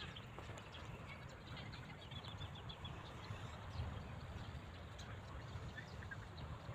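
Outdoor ambience: faint short bird chirps over a steady low rumble.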